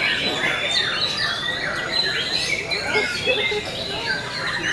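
Caged white-rumped shamas singing at once: a dense, overlapping chorus of whistles and chirps with no pause.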